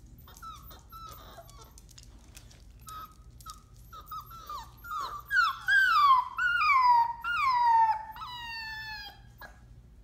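Five-week-old Entlebucher puppies whimpering: short, thin cries at first, then from about halfway a run of longer, louder whining cries, each falling in pitch.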